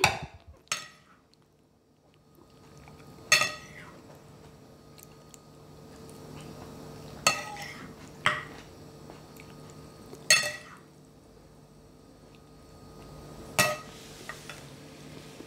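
Metal serving spoon and fork clinking against ceramic plates and a serving bowl while food is dished out: about six separate clinks spread out with pauses, each ringing briefly.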